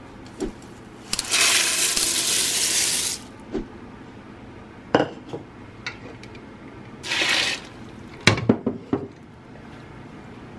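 Sunflower seeds in their shells poured into a stainless steel pot, a rattling hiss lasting about two seconds, then a second shorter pour about seven seconds in. A few sharp knocks come in between and near the end.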